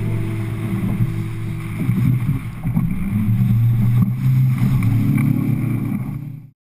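Inflatable coach boat's outboard motor running steadily under way, with wind buffeting the microphone and water splashing; it cuts off suddenly near the end.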